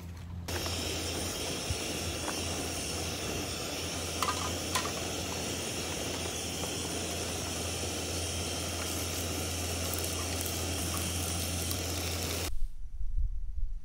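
A steady hiss over a low hum that cuts off suddenly near the end.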